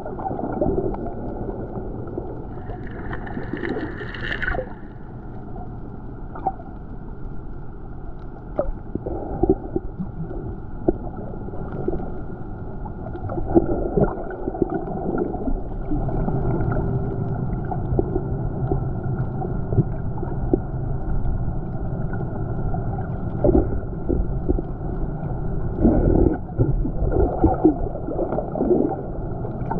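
Muffled underwater sound on a coral reef: a low steady rush of moving water with scattered clicks and knocks, and a brief brighter hiss about three seconds in.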